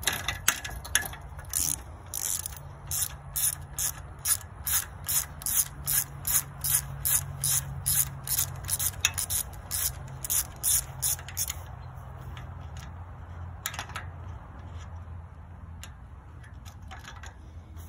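Socket ratchet wrench clicking in quick back-and-forth strokes, about three a second, as it turns a nut off a knife-section bolt on a sickle bar mower's cutter bar. The clicking stops about twelve seconds in, leaving a few light metal ticks.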